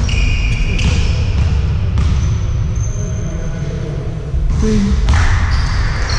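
Basketball game sounds in a large hall: a few ball bounces and short high squeaks of sneakers on the court floor, over a steady low rumble.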